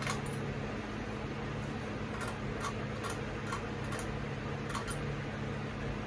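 Hampton Bay Tripoli ceiling fan running, its motor humming steadily, with a series of light, irregular clicks through the middle.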